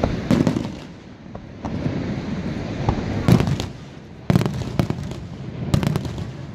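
Aerial fireworks shells bursting: a run of sharp bangs, some close together, each trailing off in a low rumble.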